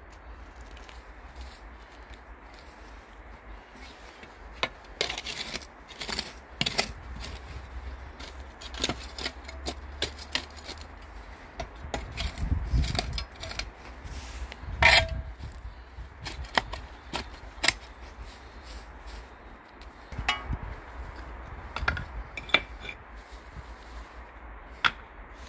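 Hand-weeding and scraping soil with a small metal dustpan: irregular scrapes, rustles and clicks of grass roots and dirt being torn up, over a low rumble that swells about halfway through.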